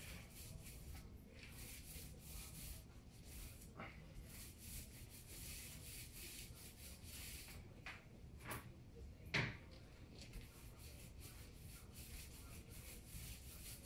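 Paint roller rolling over a wall, a faint rubbing hiss in repeated strokes, with a few light knocks, the loudest about nine seconds in.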